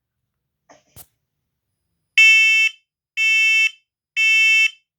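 PC1210V combination smoke and carbon monoxide alarm sounding its test. A faint click comes about a second in, then three loud half-second beeps about a second apart: the three-beep temporal pattern of a smoke alarm.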